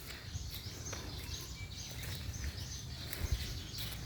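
Small birds chirping again and again in short high calls, over a steady low rumble.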